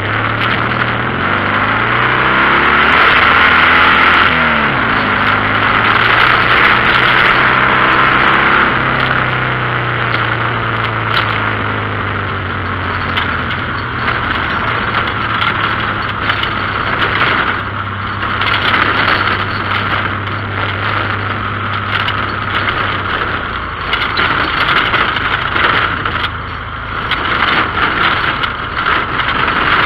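Air-cooled Volkswagen flat-four engine of an off-road buggy running under load on a rough dirt trail, its revs rising and falling a few seconds in, then holding steady. Constant rattling and clattering from the body and the rough ground over the engine noise.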